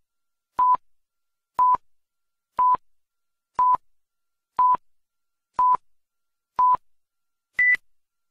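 Countdown beeps: a short, pure electronic beep once a second, seven at the same pitch, then a final beep at a higher pitch near the end.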